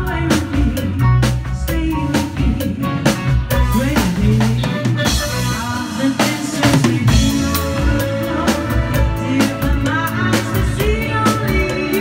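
Live band music: a woman singing into a microphone over a drum kit keeping a steady beat, with electric guitar.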